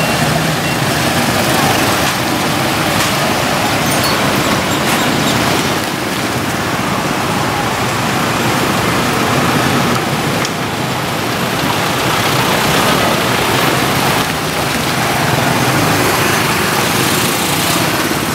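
Dense street traffic: many small motorcycle and scooter engines mixed with cars, a steady wash of engine and road noise.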